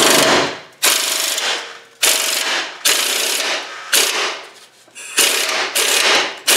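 Impact wrench hammering on a leaf-spring bolt in repeated short bursts, about eight of them, each half a second to a second long, as the new leaf springs' bolts are run down.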